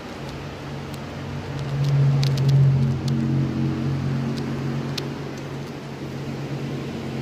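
Steady electric motor hum that swells about two seconds in, with a few light clicks.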